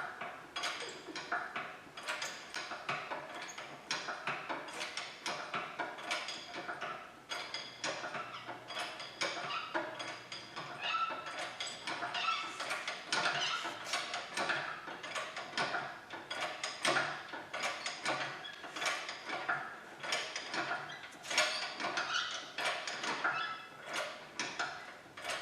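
Irregular metallic clicks, clanks and ratchet-like rattles of garage tools and lifting gear as an engine-and-transmission assembly is worked into place.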